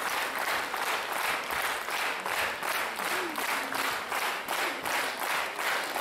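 Theatre audience applauding, the claps falling into a regular beat.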